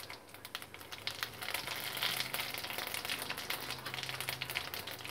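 Cumin seeds sizzling and crackling in hot oil in a kadhai, a dense patter of tiny pops that grows a little louder about a second and a half in. The crackle is the sign that the oil is hot enough and the cumin is tempering.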